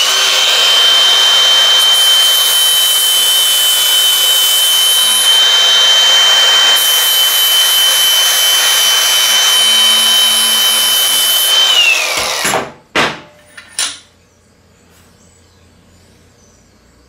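Cordless angle grinder running steadily under load with a high whine, grinding the thin-wall hydraulic line down to clean metal, then spinning down about twelve seconds in. A few knocks follow.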